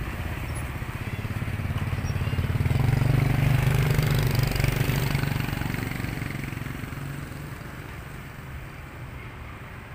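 A motor vehicle driving past close by, its engine rising to loudest about three to five seconds in and then fading away.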